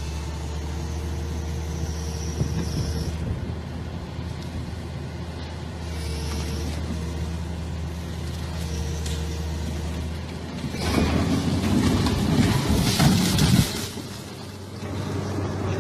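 A heavy machine's engine running at a steady pitch, then a loud rushing, rattling noise for about three seconds before the engine hum returns.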